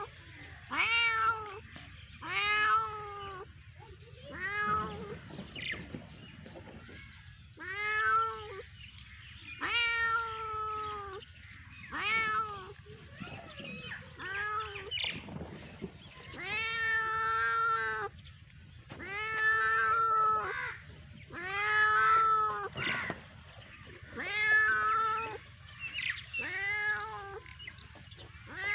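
A cat meowing over and over: about fourteen separate meows, each half a second to a second and a half long, some rising and falling in pitch, with short pauses between them.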